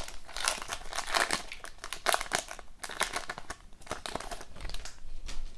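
Crinkling of a hockey card pack's wrapper being handled, a dense run of irregular crackles that dies down near the end.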